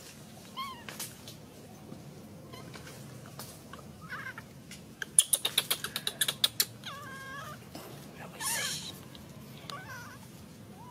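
Baby macaque giving several short, high-pitched cries, some rising or wavering. About halfway through comes a quick run of about ten sharp clicks, the loudest sound here.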